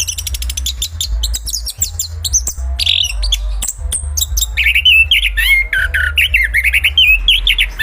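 Chestnut-capped thrush (anis kembang) singing. It starts with a fast run of high chattering notes and clicks, and about halfway in changes to clear whistled phrases sliding up and down. A low steady hum runs underneath.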